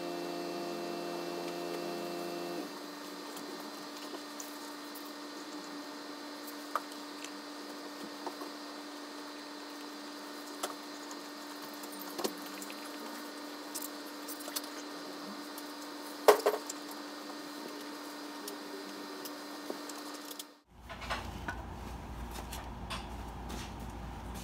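Scattered light clicks and knocks from hands working at the oil filler neck of a Honda snowblower engine, over a steady hum. The loudest knock comes about sixteen seconds in. About twenty seconds in, the background changes suddenly to a low rumble.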